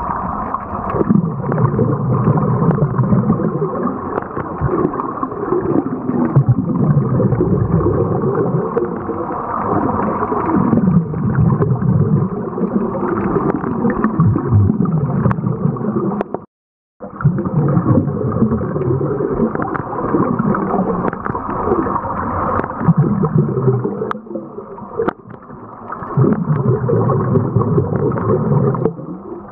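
Scuba divers breathing through their regulators underwater, exhaled bubbles gurgling in muffled surges every few seconds. The sound drops out completely for about half a second a little past the middle.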